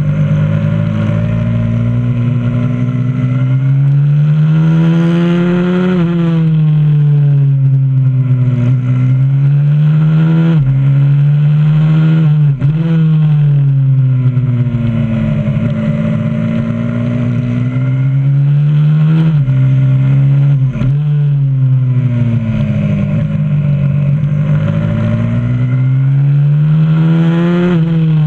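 Onboard sound of a 125cc supermoto pit bike's single-cylinder engine at track pace: the revs climb on the straights and fall away into the corners, again and again, with a few sharp dips where the throttle shuts or a gear changes.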